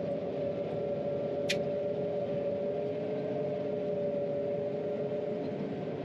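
John Deere 9500 combine running steadily while harvesting soybeans, heard from inside the cab as a constant drone with a steady two-note hum. A single short click sounds about a second and a half in.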